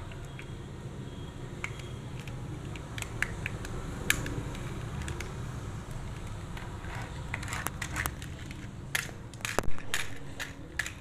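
Scattered clicks and knocks of hard plastic toy-truck parts being handled and fitted. They come more often in the second half, with the loudest knocks near the end, over a steady low hum.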